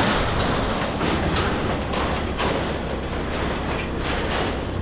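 Steady rumble of road noise and wind while riding along in traffic, with no pauses or distinct events.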